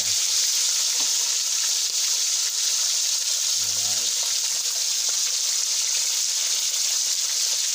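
Whole fish frying in hot oil in a wok over a wood fire, with a steady sizzle.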